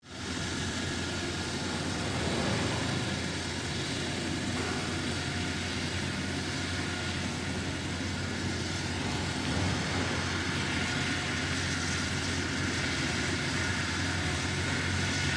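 Helicopter running on the ground ahead of take-off: a steady turbine and rotor noise with a low hum underneath, holding an even level throughout.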